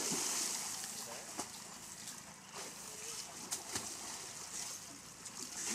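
Water splashing and sloshing as people jump into and wade through a river, loudest at the start and settling into a steady hiss.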